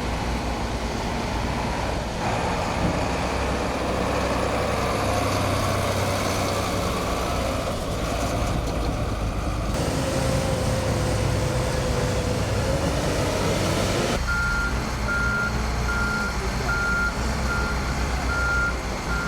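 Heavy construction vehicles' engines running steadily. In the last five seconds a reversing alarm beeps evenly, a little under two beeps a second.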